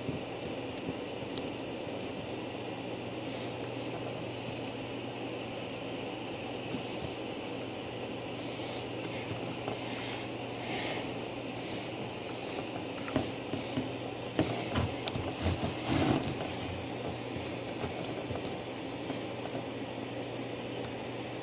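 Butane gas soldering iron hissing steadily as wires are soldered, over a low steady hum, with a few light clicks and taps about two-thirds of the way through.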